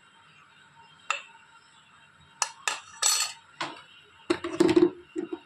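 Steel spoon clinking and knocking against a metal pressure cooker pot: a few separate clinks, then a quick cluster of knocks with a short ring near the end.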